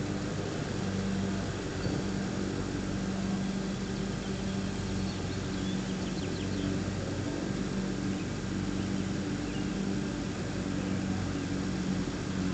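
A vehicle engine idling steadily: a low, even hum with a tone that swells and fades about every second.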